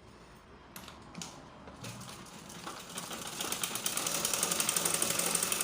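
Sewing machine stitching an invisible zipper into a gown's seam: a few separate stitches about a second in, then a fast, even run of stitching over the last couple of seconds that stops suddenly at the end.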